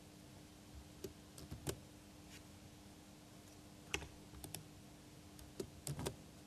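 Computer keyboard keystrokes and mouse clicks, faint and few, in small clusters about a second in, around four seconds and near six seconds, over a faint steady hum.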